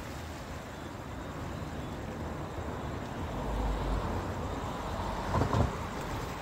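Steady rush of sea surf against a rocky shore, with wind on the microphone; a louder low rush about five and a half seconds in.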